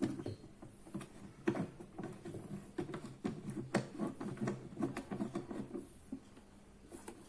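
A clamp being fitted and tightened on the back of an acoustic guitar's bridge during a reglue: irregular small clicks, knocks and scraping of the clamp against the guitar, with sharper knocks about a second and a half in and near the middle.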